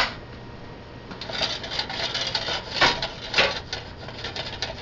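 Kitchen items being handled at the stove: rattling, rubbing and clicking, with two louder knocks in the second half.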